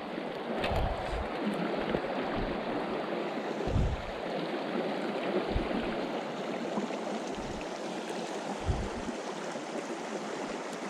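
Small mountain creek running steadily over rocks, with a few short low thumps scattered through.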